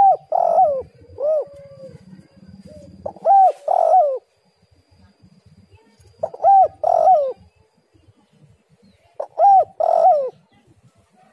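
Spotted dove cooing: four loud coo phrases about three seconds apart, each a few short notes that rise and fall in pitch.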